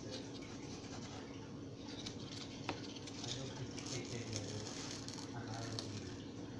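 Faint rustling and light scratching on a cardboard box, with a few small clicks, as fingers rub and poke at the cardboard.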